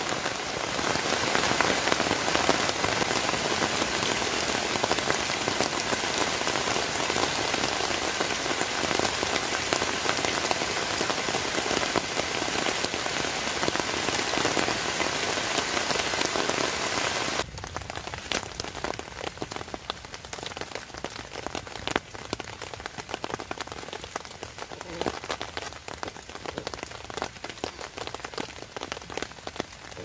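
Heavy rain falling steadily on a tarp shelter and the forest floor. A little past halfway it cuts abruptly to quieter, lighter rain with separate drops ticking.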